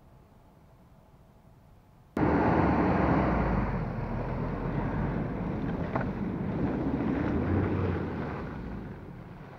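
Ford Ranger Raptor pickup driving through mud close by: engine running and tyres churning and splashing through wet ruts, starting abruptly about two seconds in and fading as the truck pulls away near the end.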